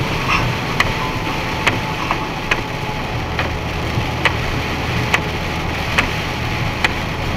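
Truck cab at highway speed on a wet road: steady engine drone and tyre and rain noise, with a sharp click repeating at an even pace, a little faster than once a second.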